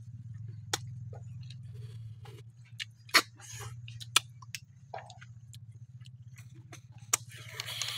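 Eating boiled snails by hand: small shells clicking against each other and the bowl, with a couple of short slurps as the meat is sucked from the shell, about three seconds in and near the end. A low steady hum runs underneath.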